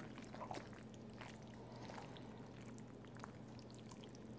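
Faint, wet squelching of macaroni and cheese sauce being stirred and folded with a silicone spatula in a stainless steel bowl, with scattered soft ticks of the spatula against the bowl. A steady low hum runs underneath.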